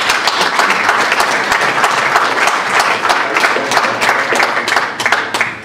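A large seated audience applauding: many hands clapping at once, steady and loud, dying away near the end.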